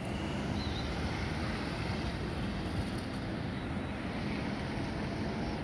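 Airbus A321-211's CFM56 turbofan engines on final approach, a steady jet noise at a distance.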